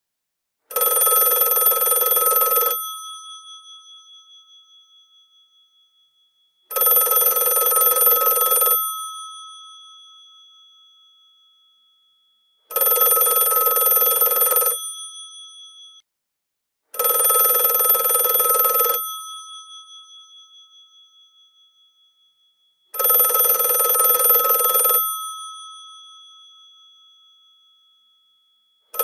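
Bells of a GPO 746 rotary telephone ringing. There are five rings of about two seconds each, most about six seconds apart, and after each the gongs ring on and fade away.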